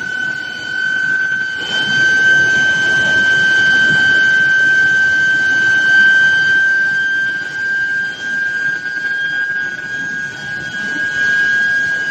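Steel billet induction heating furnace running, its coil giving a steady high-pitched whine that creeps very slightly upward in pitch, over a rumbling background of plant noise.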